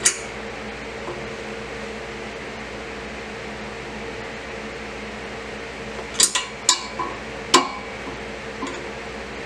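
Sharp metallic clinks from the steel exhaust pipe and its hanger as the rubber exhaust hanger is worked off by hand: one at the start, then a quick cluster of four or five between about six and eight seconds in. Under them runs a steady background hum, like a fan.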